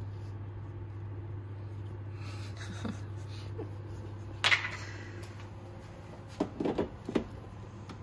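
Espresso portafilter and plastic tamper being handled. There is a sharp clack about halfway through, then a quick cluster of knocks near the end as the portafilter is brought to the machine, over a steady low hum.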